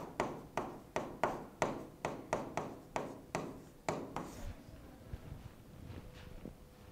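A pen writing on an interactive board: a quick run of sharp taps and short scrapes, about four a second, that stops about four seconds in, leaving only a few faint knocks.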